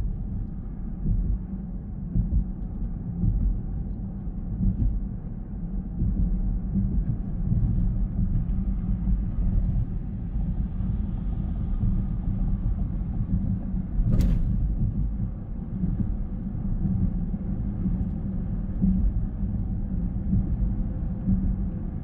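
Car driving along, its road and engine noise a steady low rumble. A single sharp click comes about fourteen seconds in.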